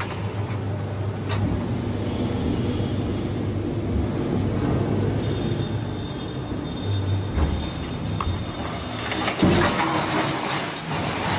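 A heavy scrap-metal shearing machine running with a steady low hum, with metal scrap clanking and scraping. A thin whine comes in for a few seconds midway, and near the end there is a louder burst of crashing metal with sharp knocks.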